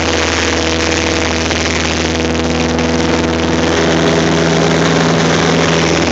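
Cessna 172's piston engine and propeller running steadily in flight, heard from inside the cabin as a loud, even drone.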